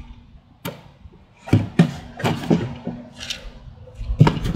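Black plastic oil drain pan knocking and thumping on concrete as it is shoved into place under the motorcycle. The knocks come at irregular intervals, several of them sharp.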